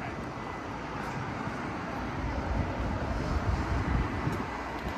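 City street ambience: a steady hum of traffic, with a low rumble that grows louder about two seconds in.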